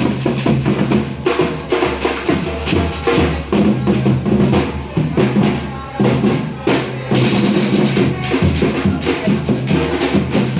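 Parade band music with drums: bass drum and snare beating steadily under sustained low notes.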